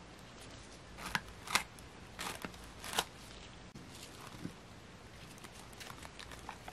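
Plastic cling film stretched over a glass food container crinkling and ticking in a few short, sharp bursts, then fainter light handling of the wrapped container.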